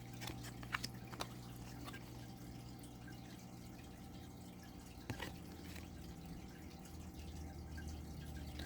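A few soft clicks of thick, glossy oracle cards being handled and flipped, three close together near the start and one more about five seconds in, over a faint steady hum.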